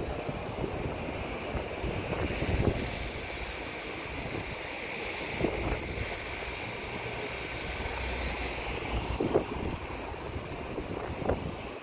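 Street ambience: road traffic running steadily in the background, with a few short knocks over it.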